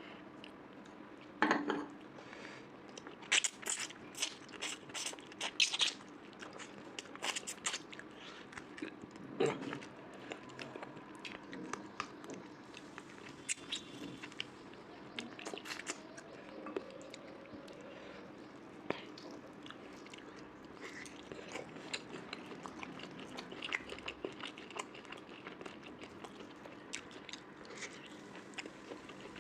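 A person chewing and crunching food close to the microphone, mouth noises of an eating show. Loud crisp bites cluster in the first several seconds, then give way to a steadier run of softer chewing.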